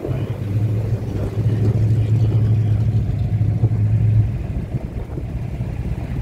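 A vehicle engine running with a steady low hum, dropping away about four seconds in.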